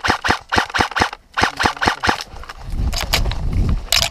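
Airsoft rifle firing rapid strings of shots, about seven a second, with a brief pause before one more string that stops about two seconds in. Low rumbling movement noise follows, with a couple of sharp cracks near the end.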